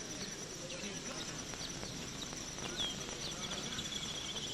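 Outdoor ambience of birds and insects: a steady high insect trill throughout, a few short bird chirps, and a quick bird trill in the second half.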